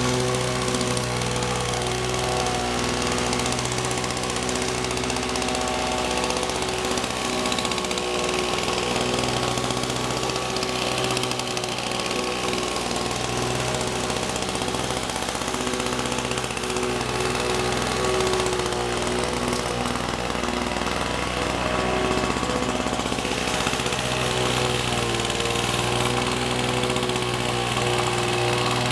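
Walk-behind petrol rotary lawn mower running steadily as it is pushed across the grass, mowing.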